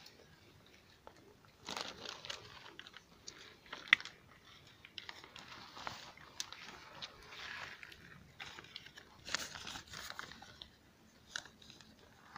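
Irregular rustling and crunching of gloved hands working a small yellow wild lemon over newspaper, a knife blade cutting into its rind, with a sharp click about four seconds in.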